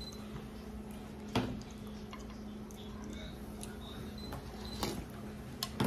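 Soup spoon and chopsticks clicking against a ceramic ramen bowl: a sharp click about a second and a half in and a few more near the end, over a steady low hum.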